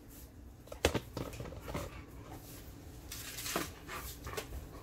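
Dogs waiting for food make small noises: a sharp click about a second in, a few soft taps, then a breathy huff or sniff around three and a half seconds.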